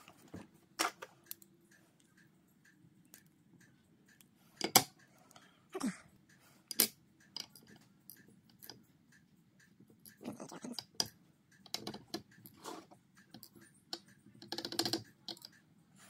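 An Assa 700 lock cylinder being taken apart by hand: small metal clicks and taps as the plug slides out on a follower tube and its pins are lifted out and set in a wooden pin tray. The clicks come irregularly, the loudest about five seconds in.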